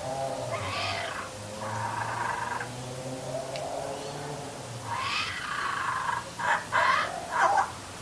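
Baby kookaburra's hunger begging: a weird low gurgling drone with harsh rasping calls over it, ending in three loud squawks in quick succession near the end.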